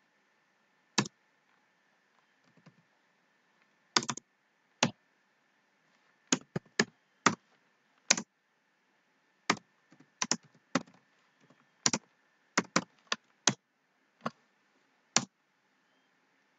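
Computer keyboard keys struck one at a time at a slow, uneven pace: about twenty sharp clicks, some in quick pairs, as commands are typed and entered.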